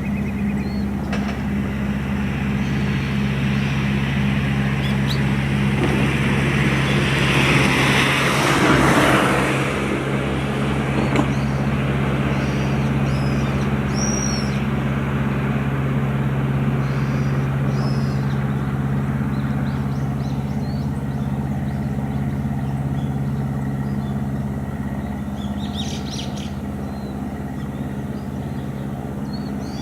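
Steady low hum of an idling engine. A louder rushing noise swells and fades about eight to nine seconds in, and birds chirp several times.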